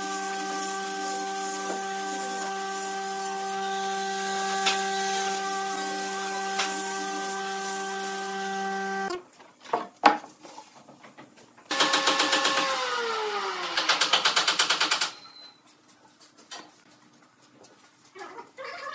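Electric angle grinder with a sanding disc running steadily, sanding a round wooden tabletop, for about nine seconds before it stops abruptly. After that come a few knocks, then a loud sound of about three seconds that slides down in pitch and ends in rapid pulsing, and faint handling sounds near the end.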